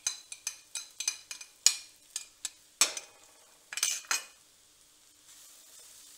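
A glass plate clinking and tapping against the rim of a steel frying pan as spice powders are knocked off it, a dozen or so sharp clinks over the first four seconds. Near the end, a faint sizzle of onions frying in oil.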